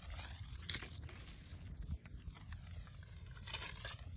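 Dry leaves and twigs crackling and rustling as they burn in a small open cooking fire, with scattered sharp snaps.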